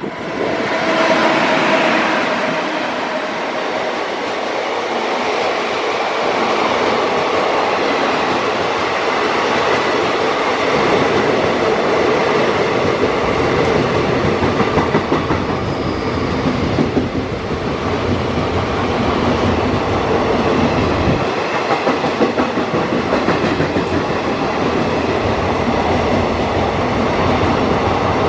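Indian Railways express passenger coaches rolling past at about 30 km/h, a steady rumble of wheels on rail with knocks scattered through it as the wheels cross the rail joints.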